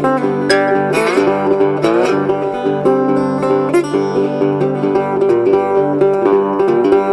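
Background music: the instrumental break of a song, plucked strings playing with a steady beat, with sliding notes a second or two in.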